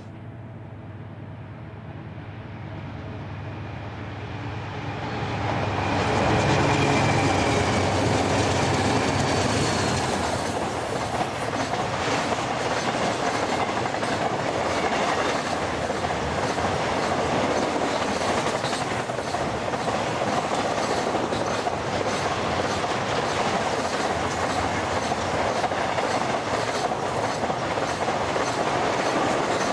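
Freight train passing close by: BNSF diesel locomotives approach with a low engine hum and go by, and the sound grows louder about six seconds in. A long train of truck trailers on flatcars follows, with a steady rumble and the clickety-clack of wheels over the rail joints.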